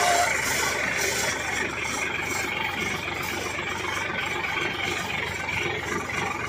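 Tractor engine running steadily as the tractor drives slowly.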